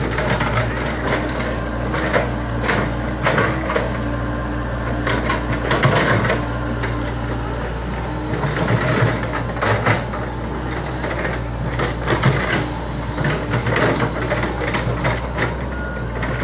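Komatsu PC70 tracked excavator running steadily under work, with many short, irregular knocks and clatter over the engine.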